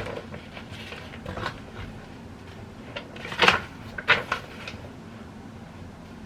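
A few short clicks and knocks of small objects being handled, the loudest about three and a half seconds in and another just after, over a steady low room hum.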